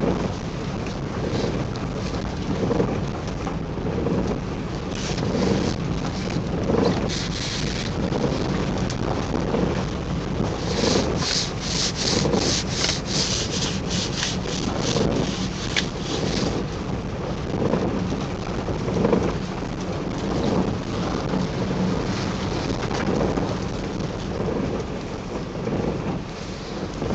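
Shiny PVC rain suit rustling and crinkling as the wearer shifts under the seatbelt, with a run of quick, crisp rustles about halfway through, over the steady low rumble of a car driving.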